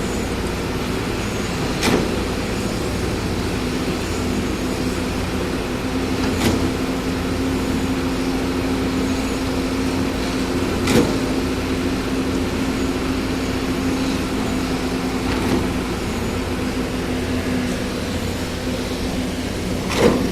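Engine of a concrete mixer-pump machine running steadily, with a sharp knock from the pump repeating about every four and a half seconds.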